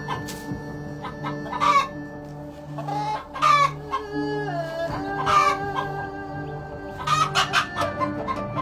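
Brooding hen clucking in short, loud bursts every second or two while confronted by a snake at her nest. Background music with held tones and a pulsing low note runs underneath.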